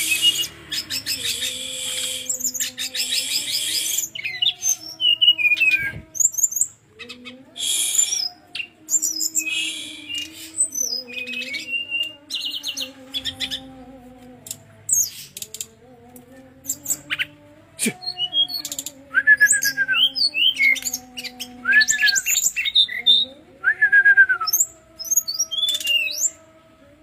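Brown-chested jungle flycatcher singing a long, varied song: rapid rattling trills at the start, then quick chirps and whistles, and in the second half a repeated down-slurred whistle about every two seconds.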